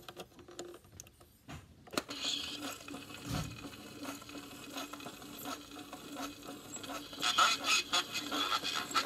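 GAF Talking View-Master playing the small record on its reel: a click about two seconds in, then a steady low hum under noisy, lo-fi playback that grows louder in short bursts from about seven seconds in.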